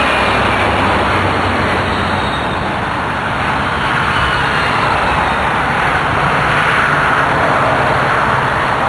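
Lawn mower engine running loud and steady, with a dense rushing noise over it.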